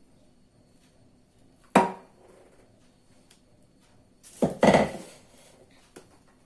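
Spatula knocking against the stainless-steel cake frame while cream is spread: one sharp knock with a short ring about two seconds in, then a quick cluster of knocks a couple of seconds later.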